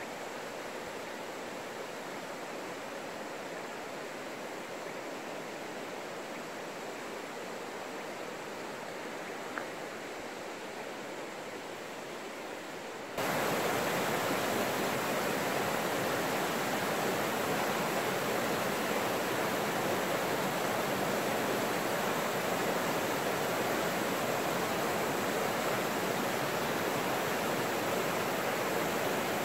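Steady rushing of a river flowing over rocks and small rapids. About halfway through it jumps suddenly louder and fuller.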